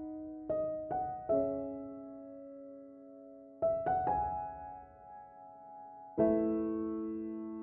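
Slow, gentle piano music: a few notes struck in small groups, each left to ring and fade, then a chord about six seconds in that is held and slowly dies away.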